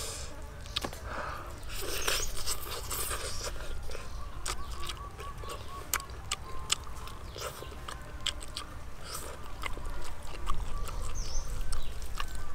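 Close-up eating sounds: roasted chicken torn apart by hand and chewed, a run of small wet clicks and crackles. Birds chirp in the background.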